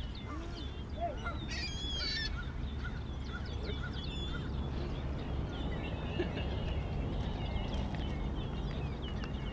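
Waterbirds calling, many short high calls overlapping, with one fuller call about two seconds in, over a steady low rumble.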